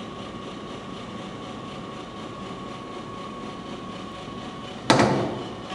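Steady mechanical hum with a thin whine, then about five seconds in a single loud bang as the sculpture's black leather shoe is slammed down onto its hollow plywood lectern top, ringing off briefly.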